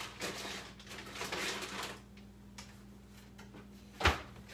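Rummaging through a kitchen cabinet, with packages and containers shifting and clattering, then one sharp knock near the end.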